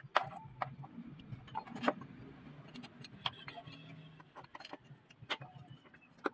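A metal wrench clinking and ticking irregularly against a bolt or fitting on a diesel truck engine as it is turned by hand.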